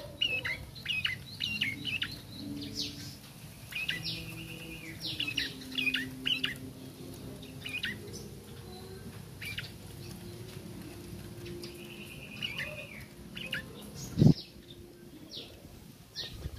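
Young caged prenjak twittering in a run of short chirps that sweep up and down, some drawn out into a held note: a juvenile practising its song. A single sharp knock comes near the end.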